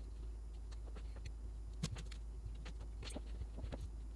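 Quiet room tone with a steady low hum and scattered faint clicks and taps, the clearest about two and three seconds in.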